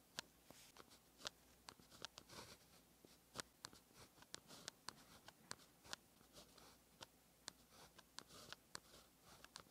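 Fine-tipped pen writing Chinese characters on paper: irregular short, sharp ticks and brief scratches of the tip on the paper as each stroke is made.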